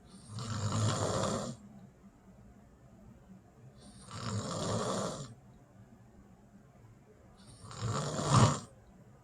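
A person snoring: three snores, each about a second long and roughly four seconds apart, the last one the loudest.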